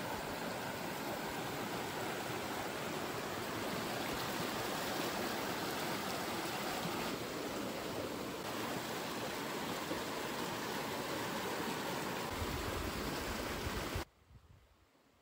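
Steady rush of a flowing stream that cuts off suddenly near the end.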